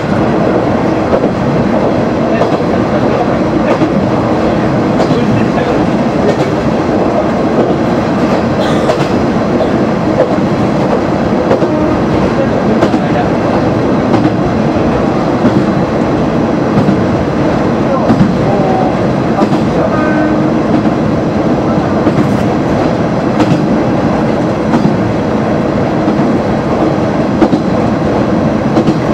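Kanto Railway KiHa 350 diesel railcar running at speed, heard from inside its cab: a steady mix of engine and running noise with irregular clicks of the wheels over the track.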